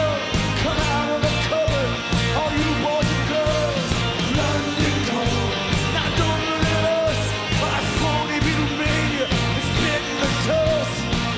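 Rock music with a sung vocal over guitar and drums, a steady beat throughout.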